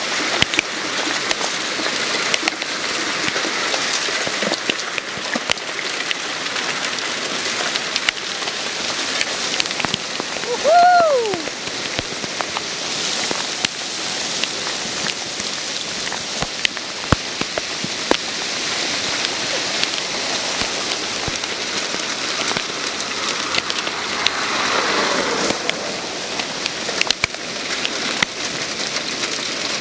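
Hail falling steadily and hitting pavement, lawn and a car, an even hiss dotted with many sharp clicks. About eleven seconds in, a brief falling whistle-like tone is the loudest sound.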